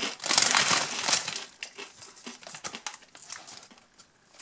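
A foil-lined potato crisp bag crinkling as a hand rummages in it and picks out crisps. The crinkling is busiest for the first couple of seconds, then trails off into a few faint crackles.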